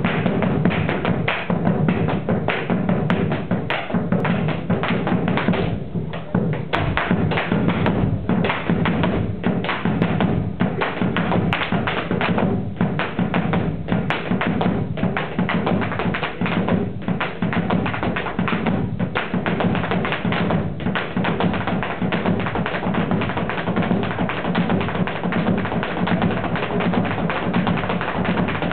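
Boleadoras swung in a fast malambo rhythm, their stone balls striking the wooden stage floor in a rapid, continuous stream of taps, with bombo drums beating along underneath.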